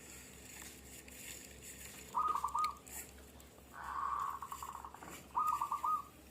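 A dove cooing: short, quick rolling coos about two seconds in and again about five seconds in, with a longer rolling coo between them.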